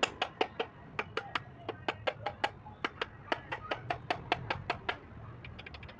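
Rapid light hammer taps, about four or five a second, driving a tractor PTO gearbox's gear-shifter rail into its bore in the housing. The taps get fainter about five seconds in.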